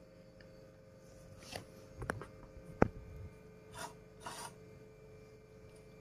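Hands handling wiring and a computer power supply's circuit board: soft rubbing and rustling with a few light clicks, the sharpest about three seconds in, over a faint steady hum.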